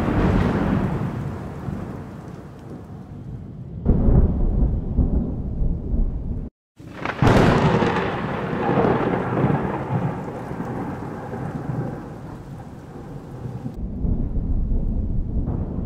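Thunder in a thunderstorm. A rolling rumble fades, a new low rumble starts about four seconds in, and after the sound cuts out for a moment a sharp, close crack of thunder breaks about seven seconds in and rolls away over several seconds. Another low rumble comes near the end.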